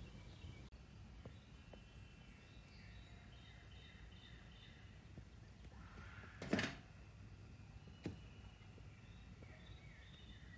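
Quiet outdoor ambience with faint birds chirping, repeated short falling chirps. A brief soft rustle about six and a half seconds in and a small click about a second and a half later.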